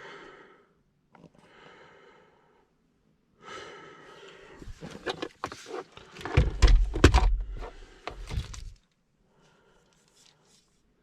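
Hands working on parts at close range: rustling with a quick run of clicks and knocks, building to a cluster of heavy low thumps and knocks about six to seven and a half seconds in, then stopping.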